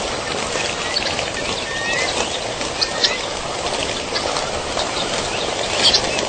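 Birds calling: short whistled notes that glide upward, repeated every second or so, and a few sharper chirps, the loudest cluster near the end, over a steady background hiss.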